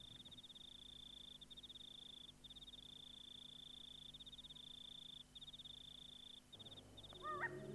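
Faint, steady high-pitched trill of a night insect, running in long stretches broken by a few short pauses. Near the end, soft music begins with gliding tones.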